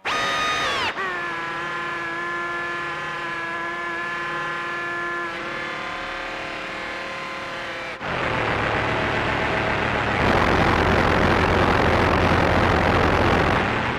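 Qun mk2 synthesizer playing a drone. It starts abruptly as a bright chord of several pitches that glides down about a second in, then holds steady. Around eight seconds in it turns into a dense noisy hiss over a low buzz, which grows louder about ten seconds in.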